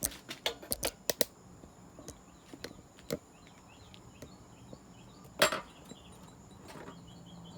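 Camera and its mount being handled and repositioned: a quick run of clicks and knocks, another knock about three seconds in, and a sharper, louder knock past the middle.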